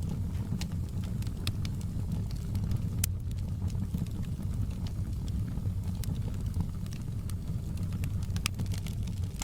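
Wood fire in a fireplace crackling: irregular sharp pops and snaps over a steady low rumble, with the loudest pops about three seconds in and again near the end.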